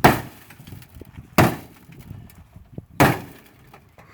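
Three heavy bangs against a car's steel door, about a second and a half apart, each with a short metallic ring, as the misaligned door is forced.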